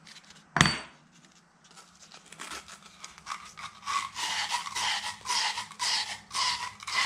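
Sandpaper rubbed back and forth over the end of a copper pipe in regular strokes, about two a second, starting a couple of seconds in, roughening the copper so solder will take. A single sharp knock about half a second in.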